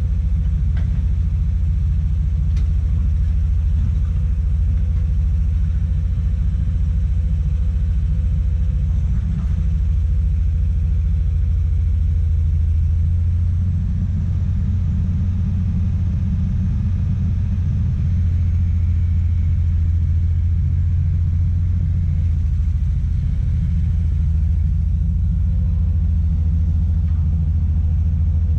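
Komatsu PC200 excavator's diesel engine running steadily under load with a deep, even rumble, and a faint steady higher tone above it.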